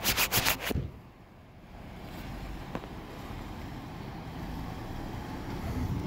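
A quick run of rubbing knocks as the phone's microphone is handled in the first second, then a steady low rumble of cars moving off that grows a little louder toward the end.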